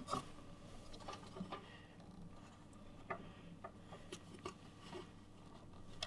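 Faint scattered taps, clicks and rubbing of hands working a 24-pin ATX power connector and its bundled cables into a motherboard inside an open metal PC case. No single click stands out from the rest.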